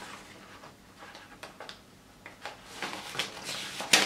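Paper rustling and crackling as a folded installation guide is unfolded by hand, busier in the second half, with the sharpest crackle near the end.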